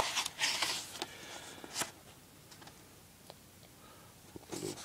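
Paper pages of a stapled softcover book being turned by hand: a sharp click and a couple of rustling swishes in the first two seconds, then quiet with a few faint ticks, and another rustle near the end.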